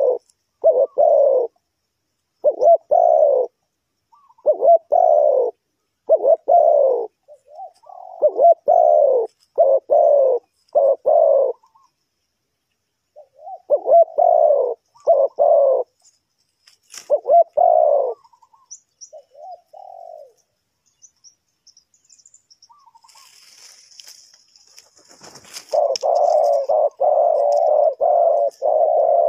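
Spotted dove cooing: repeated phrases of two or three low coos separated by short pauses. After a lull of a few seconds with a brief rustle, a faster, unbroken run of coos follows near the end.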